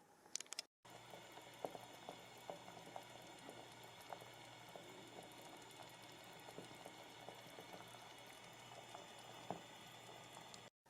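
Food simmering in a pot: soft irregular bubble pops over a faint steady hiss, after a brief high clink at the very start.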